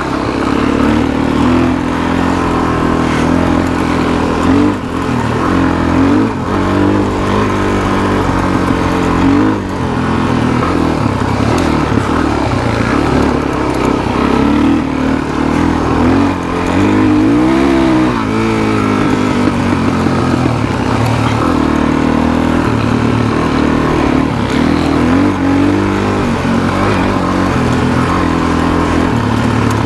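Suzuki DR-Z400SM's single-cylinder four-stroke engine running while riding, its pitch rising and falling as the throttle is opened and closed.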